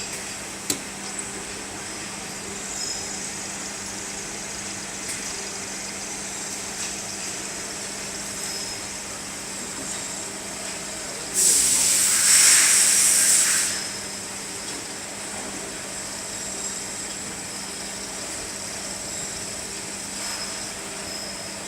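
Universal joint cross four-way drilling machine running with a steady hum and a high whine, a single click near the start. About eleven seconds in, a loud hiss lasts about two seconds, then the steady running continues.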